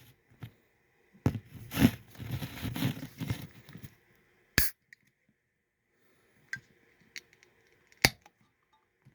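Close handling noise: rustling and crinkling for about three seconds, then one sharp click and a few lighter ticks near the end.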